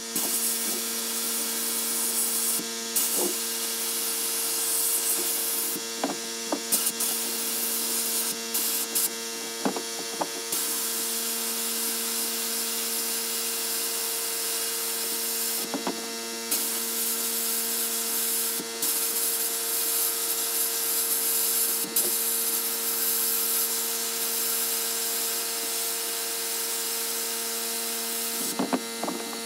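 Sandblast cabinet's blast gun hissing steadily as it strips red paint off a steel hand tool, over a steady low hum, with a few short knocks.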